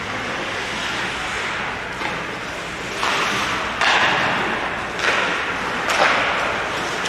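Ice hockey skates scraping and carving the ice in hissing bursts that surge from about three seconds in, with a couple of sharp knocks.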